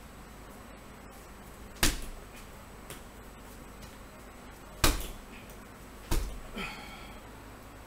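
Three kicks landing on a hanging punching bag: sharp, loud thuds about three seconds apart and then a second and a half apart, the last followed by a lighter rattle.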